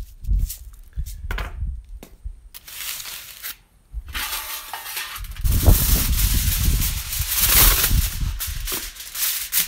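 Aluminum foil crinkling and rustling as it is pulled out and spread over a metal baking sheet, loudest from about halfway through, after a few short handling knocks.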